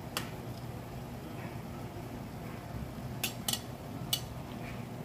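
Light clinks of a metal spatula against dishes while food is served: one just after the start, then three close together near the end, over a faint steady hum.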